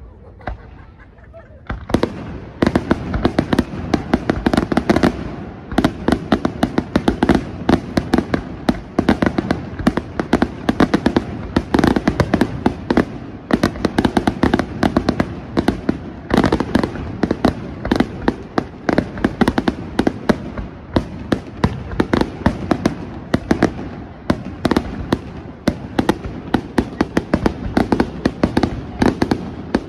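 Aerial fireworks bursting in a rapid, continuous barrage of sharp bangs, many a second, starting about two seconds in after a brief quieter stretch.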